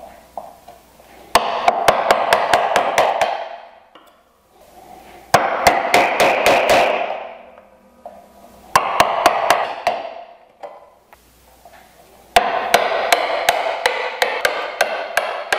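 Brass-headed mallet striking a chisel in four runs of quick light blows, several a second, separated by short pauses, with a ringing tone under each run. The chisel is being driven to chop out the waste of a bridle joint's slot.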